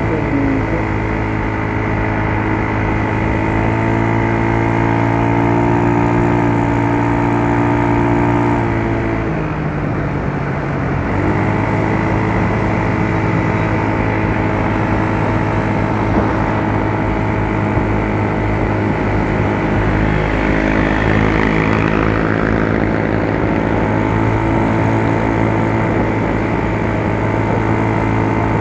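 Yamaha Mio Soul scooter's single-cylinder engine running steadily; its pitch wavers about nine seconds in and settles again about two seconds later.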